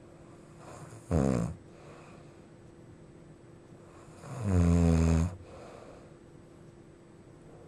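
A sleeping person snoring loudly: two low, rasping snores, a short one about a second in and a longer one about four seconds in, with only quiet room noise between.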